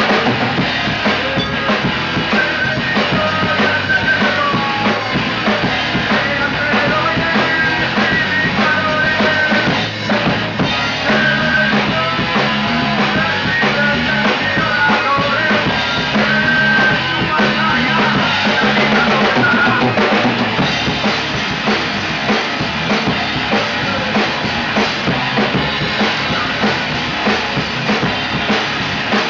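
A rock band playing, with a full drum kit, bass drum and snare, driving a steady beat under a wavering melodic line.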